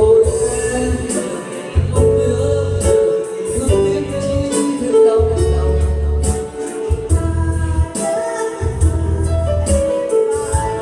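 A man and a woman singing a Vietnamese pop ballad as a duet into microphones, over electronic keyboard accompaniment with a bass line and a steady beat.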